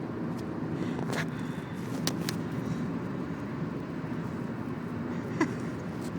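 Steady low background rumble, with a few short soft clicks and a brief squeak about five seconds in.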